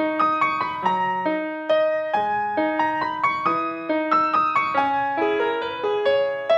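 Background piano music: a steady run of single notes and chords, several a second, each ringing and fading.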